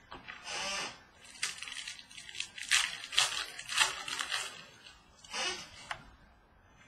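Crinkling of a Prizm football trading-card pack wrapper and cards rubbing as they are handled: a string of short crackling rustles, busiest in the middle, with a last one near the end.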